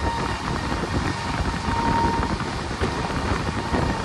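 Passenger train running at speed, heard at an open coach door: a steady rumble of wheels on rail, with wind buffeting the microphone. A thin high whine comes and goes through it.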